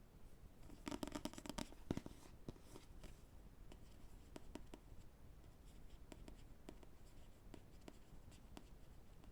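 Light tapping on books: a quick run of taps about a second in, one stronger tap near two seconds, then slow, scattered single taps.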